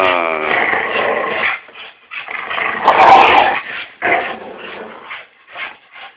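Pit bulls growling in play, in several short rough bouts, the loudest about three seconds in.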